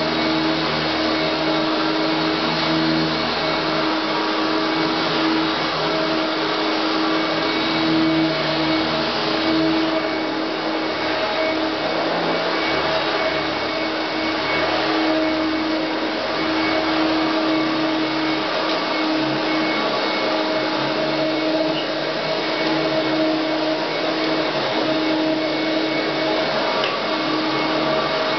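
A 1991 Hoover Turbomaster U5094 upright vacuum cleaner running steadily: a constant motor noise with a steady pitched whine on top.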